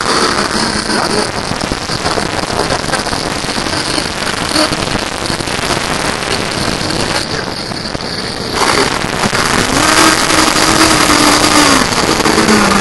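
Engines of RC racing power boats running with a steady high whine. About eight and a half seconds in a nearer engine comes in louder and revs, its pitch holding and then dropping lower near the end.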